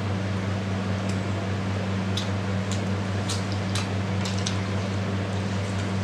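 Steady low electrical hum and fan noise, with a scatter of faint small clicks and mouth sounds of eating with the hands between about one and four and a half seconds in.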